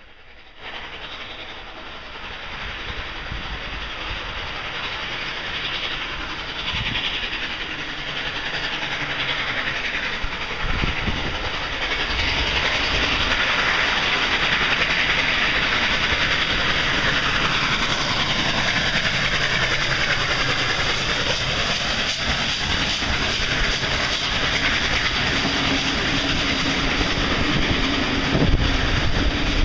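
NSWGR AD60-class Beyer-Garratt steam locomotive 6029 approaching and passing under steam, with hissing steam, growing steadily louder over the first ten seconds or so. Its heritage carriages follow, their wheels clacking over the rail joints.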